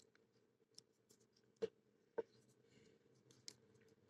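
Near silence with a few faint, scattered clicks of a lock pick and tension wrench working in a padlock's pin-tumbler cylinder.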